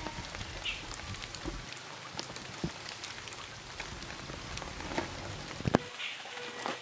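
Steady rain falling on a pond surface, a constant patter with many small drop ticks. A few sharper knocks stand out, the loudest near the end.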